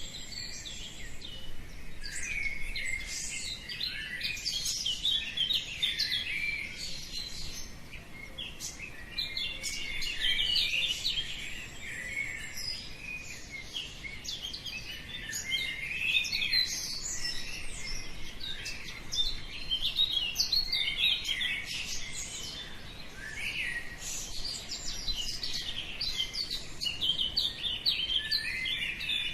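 Many small birds chirping and singing at once, short overlapping calls and trills with no pause: a dawn chorus.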